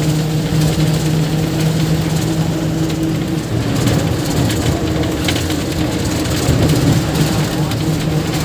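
Bus engine droning steadily, heard from inside the passenger cabin, with a low hum under the noise of the bus and scattered light rattles.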